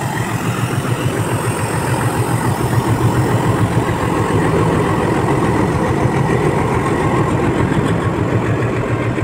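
Indian Railways diesel locomotive's engine running with a steady low hum as it hauls a passenger train past.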